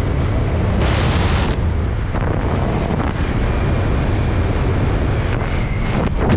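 Wind noise: airflow rushing over a helmet-mounted camera's microphone during a parachute descent under canopy, a steady low rumble with a louder, hissier gust about a second in.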